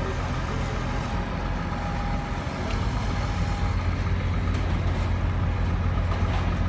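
Mobile crane's heavy diesel engine running steadily while it holds a suspended load, the engine getting louder a little past halfway through.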